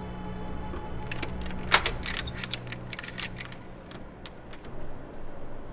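A run of sharp metallic clicks and rattles from a hotel-room door's deadbolt and lock being worked, the loudest about a third of the way in, over a low droning film score that fades out about halfway through.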